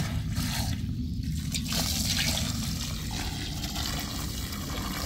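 Water from a hose pouring and splashing into a steel basin of soaked, clay-dyed cloth, the rush of water growing louder about two seconds in and running on steadily.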